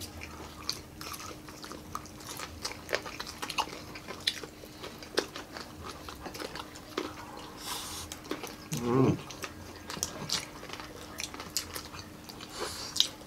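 Mouth sounds of close-miked eating: crunching and chewing on crispy fried pork (pork pinakupsan), with many small sharp clicks of lips and fingers and a faint steady hum underneath. One brief voiced sound comes about nine seconds in.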